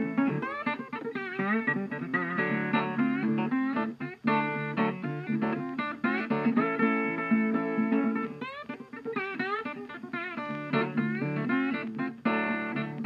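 Background music: a plucked guitar playing a melody with notes bent up and down in pitch.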